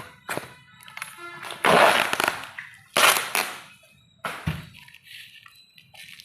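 A parcel's packaging being opened: two loud rustling, tearing noises, the first about a second and a half in and the second around three seconds, among scattered clicks and knocks.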